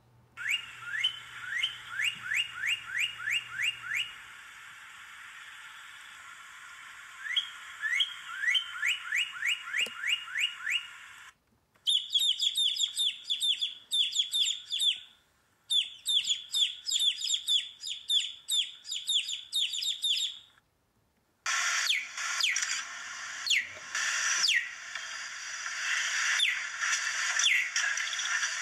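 Northern cardinal song, repeated falling whistles in two runs, then a baby chick peeping rapidly in two long bouts. Near the end a harsher, noisier animal sound takes over.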